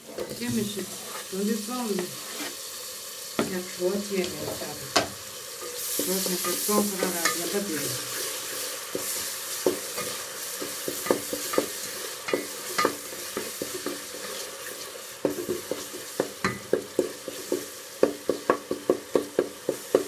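Chopped tomatoes frying in hot oil with onions in an aluminium pot, sizzling steadily, the sizzle swelling a few seconds in. A spoon stirs and scrapes the pot, knocking against its side, with a quick run of knocks in the last few seconds.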